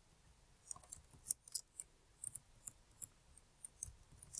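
Faint, irregular clicks of computer keyboard keys being typed, starting about a second in.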